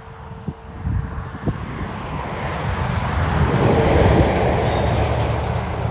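TasRail DQ-class diesel-electric locomotives hauling an empty ore train. The diesel engines rumble and the wheels clatter on the rails, with a few sharp clicks, growing louder to a peak about four seconds in as the train draws near.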